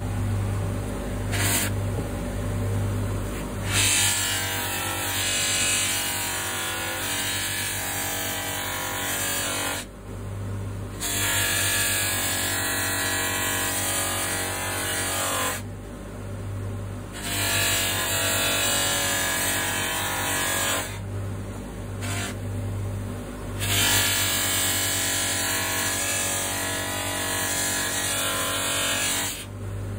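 Electric bench buffer running with a steady motor hum while a metal vice part is pressed against its spinning cotton buffing mop, making a dense rushing hiss. Several times the part comes off the mop for a second or two and only the motor hum remains.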